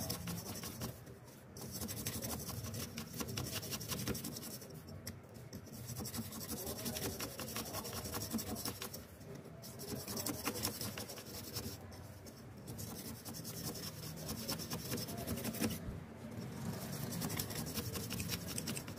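Toothbrush bristles scrubbing the hub and blades of an old, grimy computer case fan: a fast scratchy rubbing that breaks off briefly every three to four seconds.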